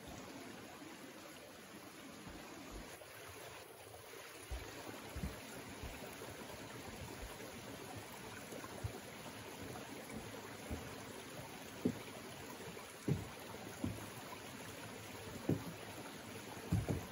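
Mountain stream running over rocks, a steady rush of water. In the second half, a few footsteps thud on a wooden log footbridge.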